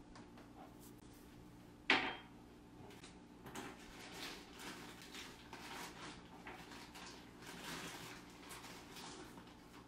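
A kitchen cupboard door knocks shut about two seconds in. It is followed by a run of soft, irregular taps and scrapes of things being handled at the counter.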